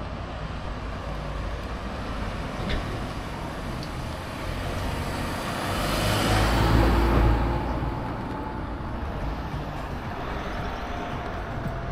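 Street traffic: a motor vehicle passes close by, swelling to its loudest about six to seven seconds in and then fading, over a steady background of traffic noise.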